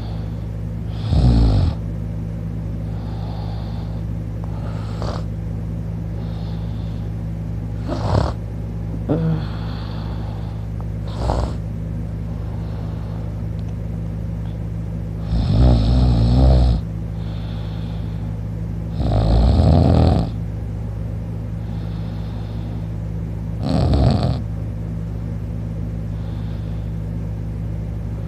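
A person snoring while sleeping on their back with the mouth open: six loud snores come a few seconds apart, some lasting over a second, with fainter breaths between them. A steady low hum runs underneath.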